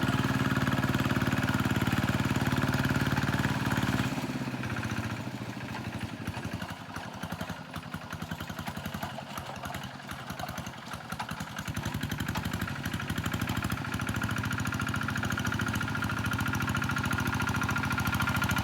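Tractor engine running steadily at high speed, then dropping off about four seconds in to a lower, uneven run for several seconds, before picking up again to a steady run for the rest.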